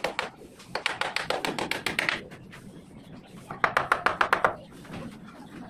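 A small hammer rapidly tapping on brick and masonry, in two quick runs of light blows at about eight a second.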